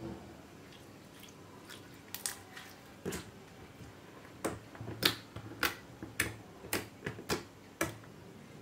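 Fingers poking and pressing a flattened lump of shampoo slime on a hard surface, making sharp wet clicks and pops. A few scattered ones come first, then from about halfway in they settle into about two a second.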